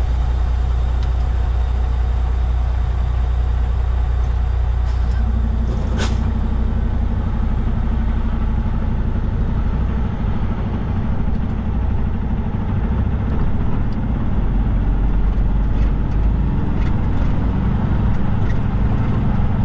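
Semi-truck diesel engine heard from inside the cab, idling and then pulling away, its note stepping up about five seconds in. A single sharp click comes just after that.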